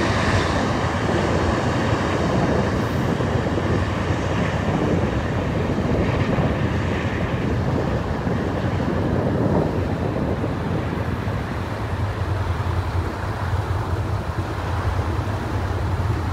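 Steady rumble of road traffic crossing the bridge, mixed with wind buffeting the microphone.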